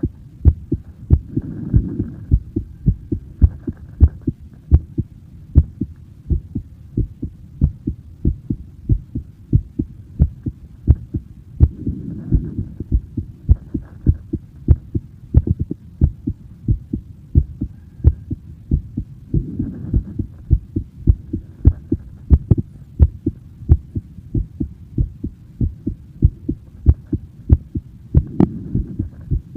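A person's heartbeat: a steady, rapid run of low thumps, with a soft rushing swell rising and fading every several seconds.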